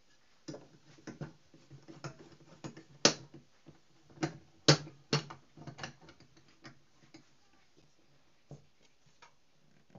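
Homemade steel bar clamps being fitted and tightened on two wooden boards: irregular clicks and knocks of metal clamp parts and wood against the bench. Two sharper knocks come about three seconds and about four and a half seconds in, and the clicking thins out after about six seconds.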